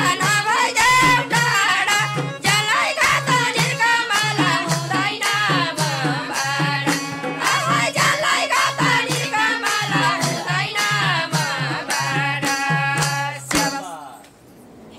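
Nepali dohori folk music played live: an instrumental break with a melody bending in pitch over a steady, fast hand-drum beat. The music stops suddenly about a second and a half before the end.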